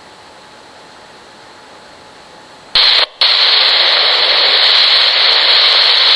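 RadioShack Pro-97 police scanner under low hiss, then breaking into a loud burst of radio static with no voice in it. The burst starts suddenly nearly three seconds in, drops out for an instant, then holds steady for about three seconds and cuts off at the end.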